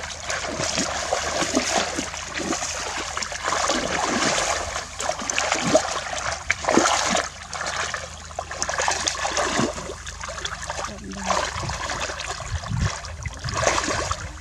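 Shallow water splashing and sloshing in uneven bursts as it is churned by hand, the sound of fishing by hand.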